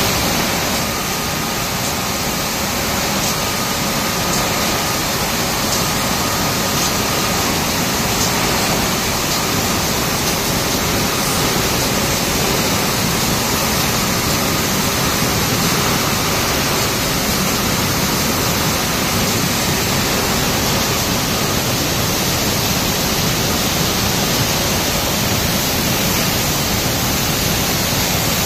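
A steady, loud noise of glassworks machinery and open gas burner flames heating glass containers on a rotary machine. A faint high tone comes and goes over the first several seconds.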